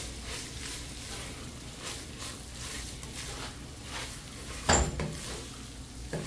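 Wooden spoon stirring shredded chicken around a stainless steel pot, with a light sizzle as butter melts into it on the heat. A single sharp knock, the loudest sound, comes about three-quarters of the way through.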